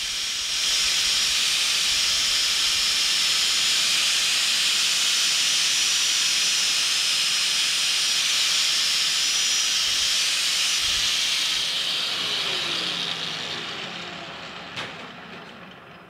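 Dynabrade power file, a small belt sander, running against a steel part turning in a metal lathe, giving a loud, steady hiss. About twelve seconds in it fades away with a falling whine as the tool winds down, with a single click near the end.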